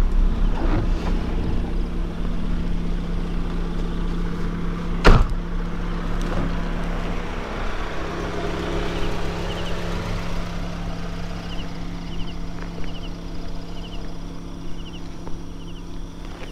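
A steady engine hum that slowly fades, with one sharp knock about five seconds in. Faint short high chirps come about once a second near the end.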